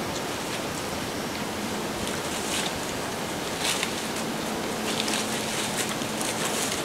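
Steady rushing outdoor noise, with short rustles of dry leaves every second or so.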